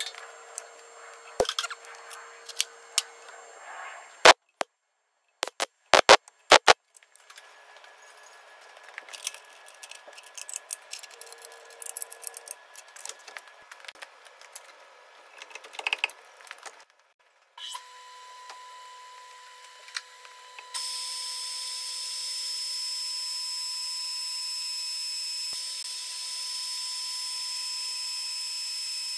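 Scattered metal clanks and knocks as the drilling machine is set up, then the motor of a large old drilling machine starts about 17 seconds in. A few seconds later the bit cuts into the steel excavator bracket with a steady hiss and a high whine, drilling a hole for a pin retaining bolt.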